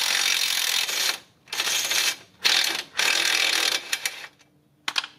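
Socket ratchet clicking as it backs out a rusted bolt from the steering knuckle, in four runs of about a second or less with short pauses between them. A couple of sharp metallic clicks follow near the end.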